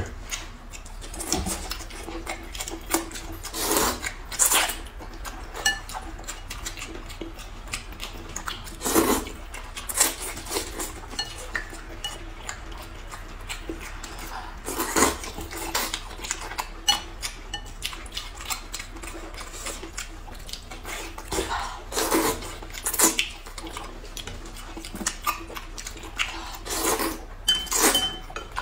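Two people eating noodles and soup: short slurps and chewing, with chopsticks and spoons clinking against ceramic and glass bowls, in irregular bursts every few seconds.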